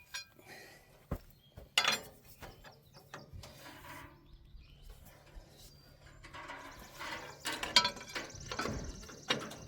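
Metal clinks and scraping of a box-end wrench being worked on a stuck bolt that won't turn, with a few sharp knocks early and a longer rattling stretch near the end.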